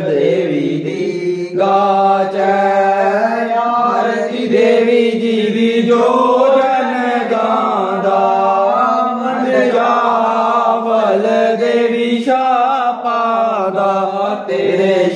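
Devotional singing of the Punjabi aarti hymn to the goddess, a voice carrying long melodic phrases over a steady low accompaniment.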